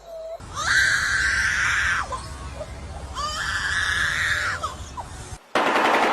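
A bird's harsh, raspy screaming call, given twice, each scream lasting about a second and a half. A different loud, noisy sound cuts in near the end.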